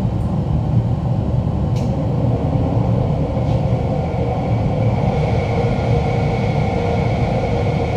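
Steady loud roar of a forge running at welding heat together with shop machinery, with a faint high whine coming in about halfway through.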